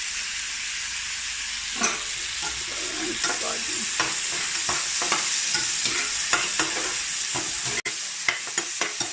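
Chicken and onion masala sizzling in a nonstick frying pan, with a steady hiss. From about two seconds in, a stirring utensil scrapes and knocks against the pan again and again.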